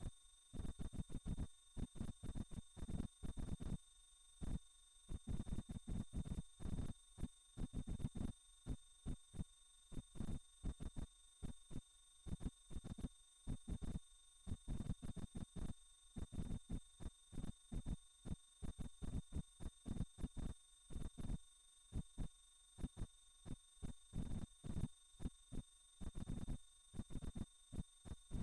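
A single very high-pitched electronic sine tone, held steady and pulsing evenly in loudness several times a second, played as a sound-healing frequency.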